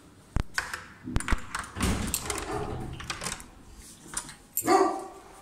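Key working a front door lock and the door being opened: sharp clicks and knocks, then rattling as the door swings. A brief louder sound comes near the end.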